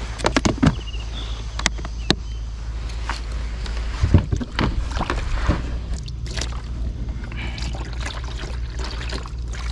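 Knocks and clatter of gear against the plastic hull of a fishing kayak, loudest about four to five and a half seconds in, then water trickling as it is poured from a plastic jug near the end, over a steady low rumble.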